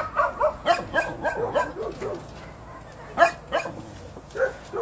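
Dog barking and yipping: a quick run of short, sharp calls at the start, then a few single barks spaced out over the following seconds.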